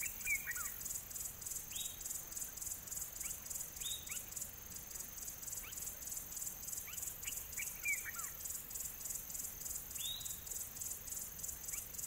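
Outdoor soundscape of insects and a bird. A high, steady insect chorus pulses evenly, about four pulses a second. Over it a bird gives short, falling calls every couple of seconds, some in quick runs of several notes.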